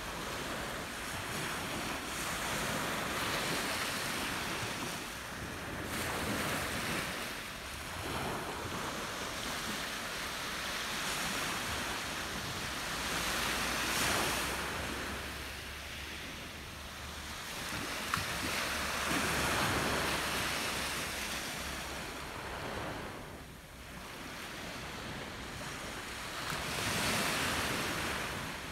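Small sea waves breaking and washing up a pebble beach, the surf swelling and fading every few seconds.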